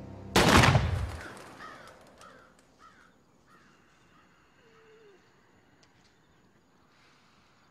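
A sudden loud bang that dies away over about a second, followed by crows cawing several times in quick succession.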